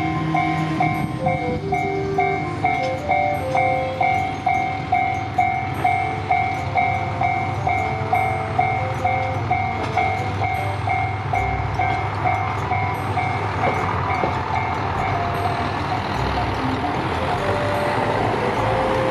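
Diesel sightseeing train running past, with a level-crossing warning bell ringing about twice a second that stops about 15 seconds in. The train's running noise then grows louder as the cars pass close by.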